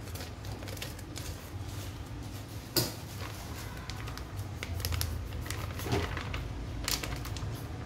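Scissors snipping open a plastic packet of crispy-fry flour, then the packet crinkling and rustling as the flour is poured into a stainless steel bowl, with scattered sharp clicks and taps. The sharpest click comes about three seconds in, and a steady low hum runs underneath.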